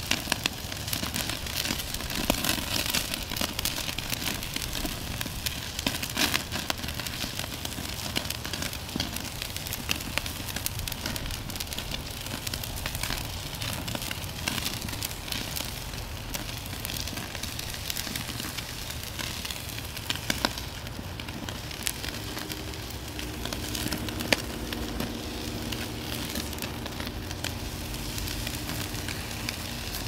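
Steak sizzling on a charcoal grill's grate over hot coals: a steady crackling hiss with frequent sharp pops and spits of fat. A faint low steady hum joins in during the last third.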